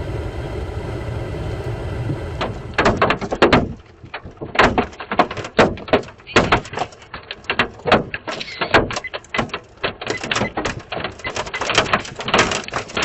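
Steady road and engine noise from inside a moving vehicle. From about two and a half seconds in, hailstones strike the vehicle in hard, irregular knocks, several a second.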